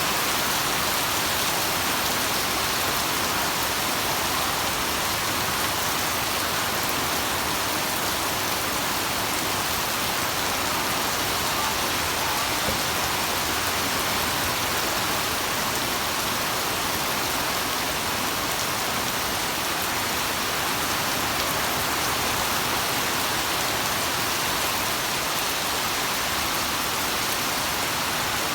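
Heavy rain falling steadily, an even hiss of downpour that does not let up.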